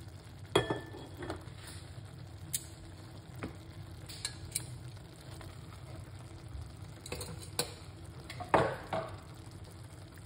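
Mixed vegetables sizzling in an aluminium pot, with scattered knocks and clinks of a utensil against the pot as they are stirred. The loudest knocks come about half a second in and near the end.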